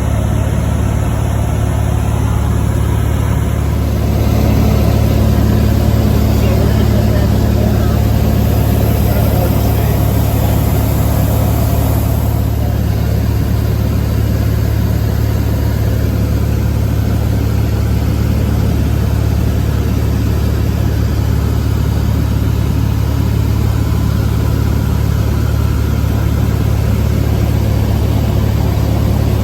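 Airplane engine droning steadily inside the cabin in flight. It is loud and unbroken, growing slightly louder about four seconds in.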